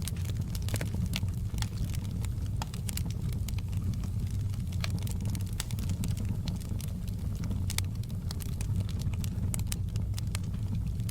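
Wood fire in a fireplace crackling: sharp snaps and pops at irregular intervals over a steady low rumble of the flames.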